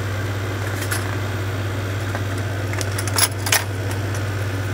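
Light metallic clinks and crinkling of a plastic blister card as a buzzbait in its package is handled, with a couple of sharper clicks about three seconds in. A steady low machine hum runs underneath.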